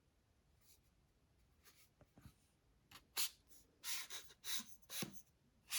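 A run of short scratchy rubbing and scraping noises from hands handling a selfie stick during unboxing, starting about three seconds in after a quiet stretch.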